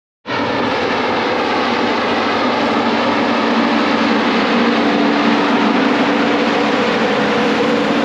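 New Holland CR8.90 combine harvester driving past close by, its engine and machinery running with a steady loud drone and hum. The sound cuts in suddenly just after the start.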